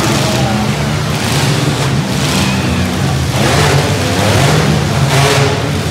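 Engines of several demolition-derby mini trucks running and revving while they ram one another, a steady rumble with repeated surges of noise.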